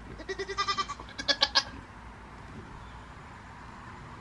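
Goat bleating twice, quavering calls in the first second and a half, the second one louder.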